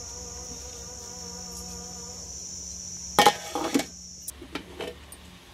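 A metal plate set as a lid on a large aluminium cooking pot clanks sharply twice, about three seconds in, followed by a few lighter knocks. A steady high-pitched buzz runs beneath it until about four seconds in.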